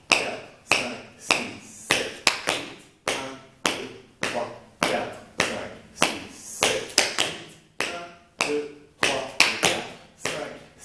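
Line-dance footwork: hard-soled shoes tapping, stepping and stomping on a tiled floor in a steady rhythm, about two footfalls a second with some quick double taps.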